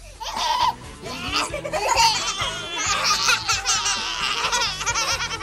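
A toddler laughing in repeated high-pitched runs, over background music with a steady, repeating bass.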